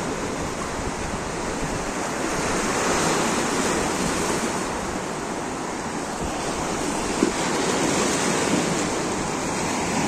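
Sea surf breaking and washing over a rocky shore, a steady rush that swells and ebbs slowly in loudness.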